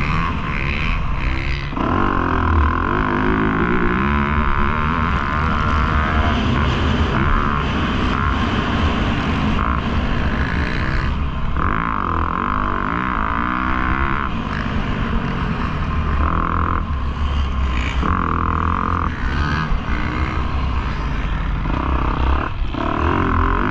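Motocross bike engine being ridden hard, its pitch climbing and falling as the rider works the throttle and gears, with short drops every few seconds where the throttle shuts. A heavy low wind rumble sits under it.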